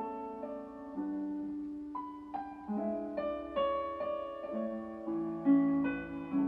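Piano music: slow melody and chords, a new note struck about every half second and left to ring.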